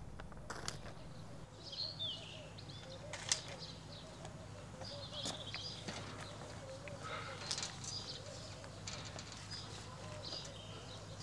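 Garden ambience with small birds chirping on and off, some short calls at a time. A few light, sharp clicks are heard now and then.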